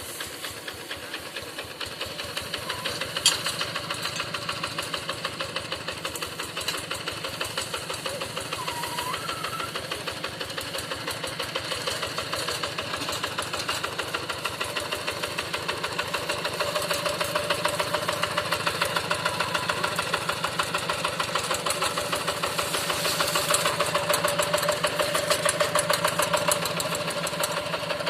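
Hand tractor's diesel engine running with a steady, even chugging, getting a little louder toward the end; a single sharp click sounds about three seconds in.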